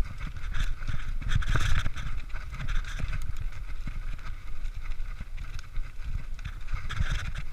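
Mountain bike riding fast down a dirt forest trail: tyres rolling over the dirt, the bike rattling and clicking over bumps, and wind buffeting the microphone in an uneven low rumble.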